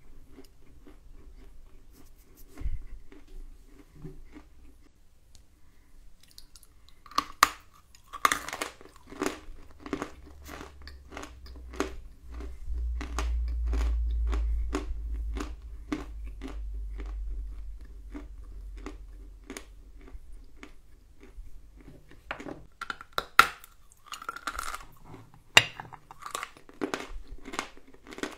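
Close-up crunching and chewing of hard, dry edible clay, with irregular crackles as the chunks break between the teeth; the crunching comes in bouts, with a low rumble in the middle.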